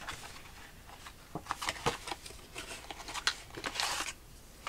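Cardboard packaging being handled: a cardboard sleeve opened and paper cards slid out of it, giving scattered light taps and short rustling scrapes, with a longer sliding scrape about four seconds in.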